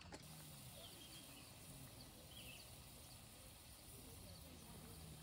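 Faint, steady hiss of potato fries frying in hot oil in a small camping pan on a portable gas stove, with a few short high chirps over it.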